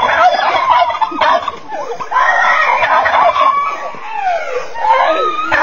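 Chickens and a rooster clucking and crowing, with several falling calls near the end.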